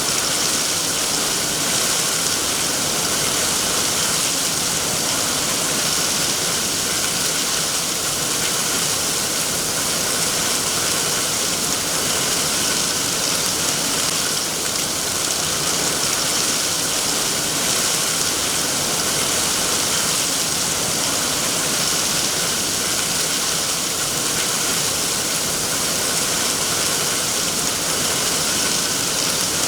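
Steady, even rainfall, a continuous hiss of falling rain without pauses or distinct drops standing out.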